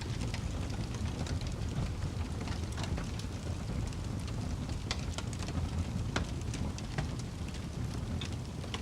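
Fire crackling: scattered sharp pops and snaps, a few louder than the rest, over a steady low rumble.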